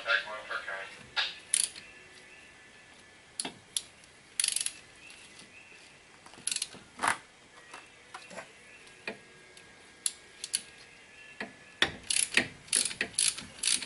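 Hand ratchet wrench turning a brake caliper bolt, with scattered metallic clicks and knocks of the tool, then a quick run of ratchet clicks near the end.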